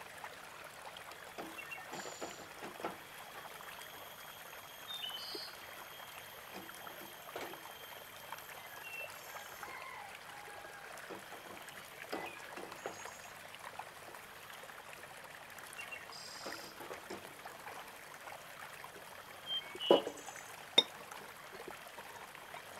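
Liquid trickling as turmeric-ginger jamu is poured through a plastic strainer into a glass jug, with light clinks and scrapes of a metal spoon in a steel pot. Two sharper knocks near the end are the loudest sounds.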